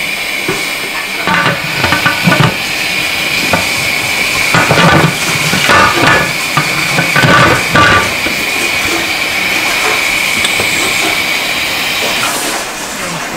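Steam hissing steadily from a pressure cooker of boiling beef, with a high whistling edge, until it stops about twelve seconds in. Several short metal clinks and knocks of the lid and pot over the first eight seconds.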